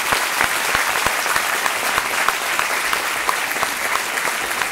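Audience applauding, a dense steady clapping that keeps up without a break.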